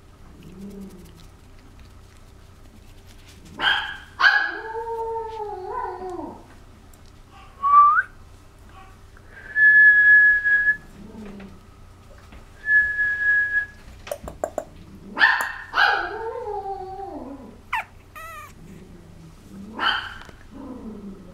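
A six-week-old puppy yapping and whining in several bouts. Sharp yaps trail off into falling, howl-like whines around 4 and 15 seconds in, and thin high-pitched steady whines come near 10 and 13 seconds.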